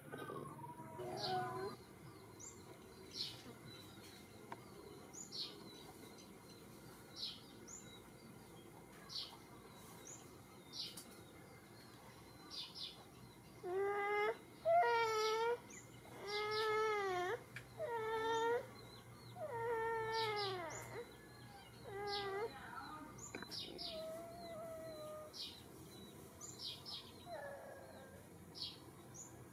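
Baby monkey crying out in a run of short calls, each rising and falling in pitch, one after another through the middle of the stretch, while small birds chirp over and over.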